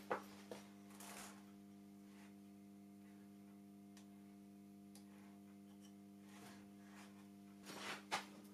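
Faint clicks and knocks from a counterweighted wooden-arm dust hood over a table saw as it is lifted and lowered by hand: a sharp knock right at the start, a few lighter clicks about a second in, and another sharp knock near the end. A faint steady hum runs underneath.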